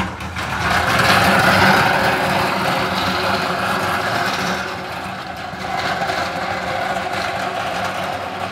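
Wheeled stainless-steel crawfish cooker being pushed along a paved driveway, its wheels and metal frame rattling steadily as it rolls.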